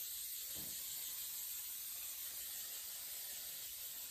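Aerosol cooking spray hissing in one long, steady spray while greasing a baking pan so the bars will release.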